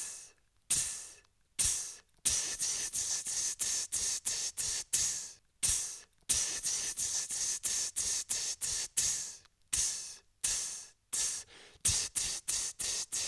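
Beatboxer imitating an open hi-hat with the mouth: long hissing 'tsss' sounds that fade out, then a quick rhythmic run of short and drawn-out hi-hat hisses, about three or four a second.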